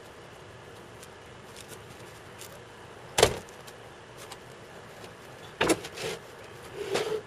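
Two sharp bangs about two and a half seconds apart, then a cluster of lighter knocks and clatter near the end, over a steady faint hiss.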